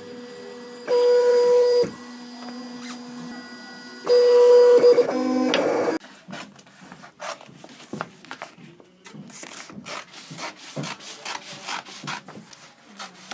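Vinyl sign cutter running, its motors giving two loud steady whines about a second long each as the carriage and roller move, then a short stepped run of tones. After that comes a quieter stretch of irregular clicks and knocks.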